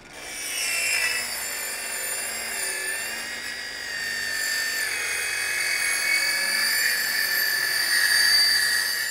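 DeWalt cordless circular saw ripping lengthwise through a cellular PVC siding panel: a steady high whine that starts abruptly and grows a little louder toward the end of the cut.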